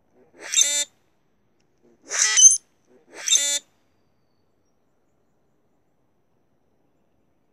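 Male common grackles singing in display: three short, harsh, squeaky calls, one near the start and two more close together around two to three and a half seconds in.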